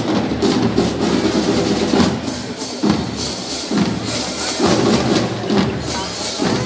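A fanfarra marching band playing, with drums and percussion beating a steady, driving rhythm.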